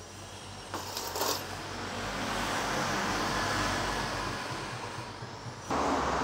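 A road vehicle going by, a low rumble that swells for a few seconds and then fades, with a sharp click and a short rattle near the start. Just before the end the sound cuts abruptly to a louder steady hum.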